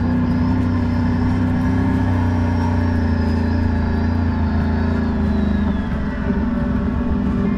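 ATV engine running steadily at cruising speed on a dirt trail, easing off briefly about three-quarters of the way through.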